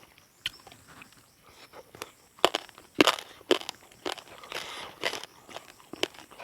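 Close-up eating sounds: a person chewing and biting food, with several sharp crunches, the loudest about two and a half to three and a half seconds in.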